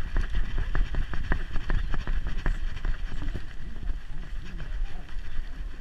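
Handling noise from a GoPro strapped to a running Staffordshire bull terrier's back: a steady low rumble of jostling with many irregular knocks and clicks from the mount and the dog's movement.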